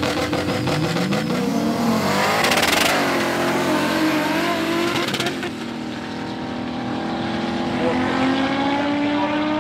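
Audi 80 quattro drag car launching hard off the line and accelerating, its engine pitch climbing steeply and loudest a couple of seconds in. Then it drops to a lower, steadier drone that slowly rises as the car pulls away down the strip, with a second car running alongside. The gears are being changed by hand on the gearbox linkage because the gear lever has broken.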